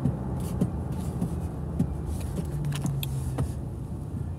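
Car cabin noise: the steady low hum of a running car heard from inside, with a few faint light clicks.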